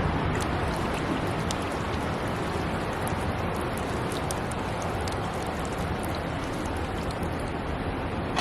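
A solar fountain pump's jet of water falling back into a bird bath: steady splashing of drops on the water.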